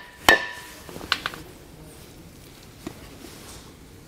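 A hammer strikes a block of wood laid across a grease seal, driving the seal into a trailer disc-brake hub and rotor: one sharp blow with a brief metallic ring, then a few light clicks about a second in. The seal is being tapped down until it sits flush.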